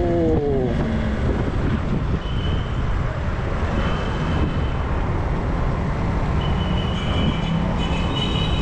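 Motorcycle engine running under way, with wind and road noise. In the first second the engine note drops in pitch as the revs fall, then it runs steady.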